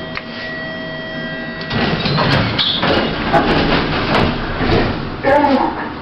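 Lift's sliding doors running, with clunks and rattles as they move.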